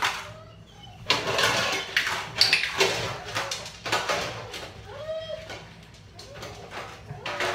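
Metal baking trays scraping and clattering on a vinyl kitchen floor as a dog noses and pushes them, with a few short squeaks mixed in.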